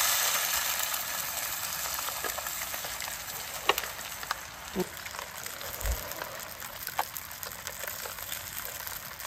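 Food frying in hot oil: a sizzle that is loudest at the start and slowly fades, with scattered pops and crackles.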